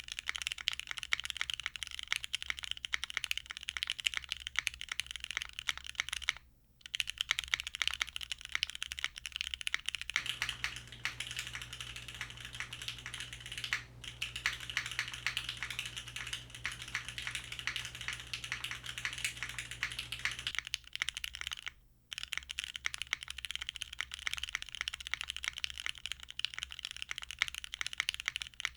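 Steady, fast typing on a jjw Moment 60% mechanical keyboard with stock Gateron UHMknown switches on a polypropylene plate, half-gasket mounted, with GMK keycaps. The typing stops briefly about six and a half seconds in and again about 22 seconds in.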